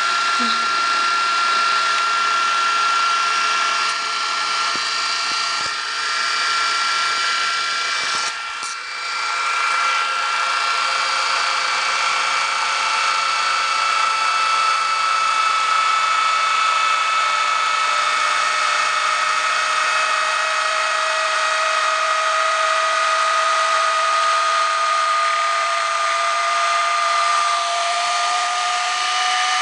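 Sharp VC-M530 VHS recorder rewinding a cassette with its mechanism exposed: the reel motor and spinning tape reels give a steady whine. Its pitches drift slowly as the tape winds across, one falling and one rising. There is a brief click about eight seconds in.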